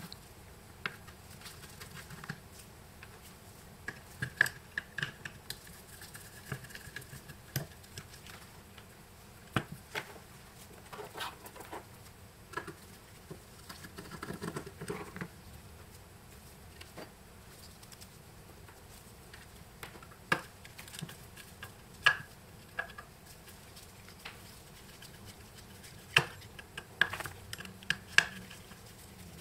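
Scattered small metal clicks, taps and scrapes as a screwdriver works the terminal screws and small metal parts of a vintage crank telephone's baseplate, with a longer patch of scraping about halfway through.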